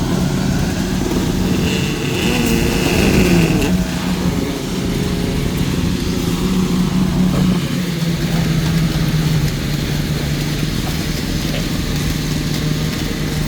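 An engine running steadily, with a steady low hum, and a brief high tone about two seconds in.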